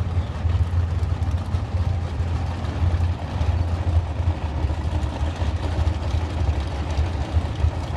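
Vehicle engine running steadily with a low, unbroken rumble.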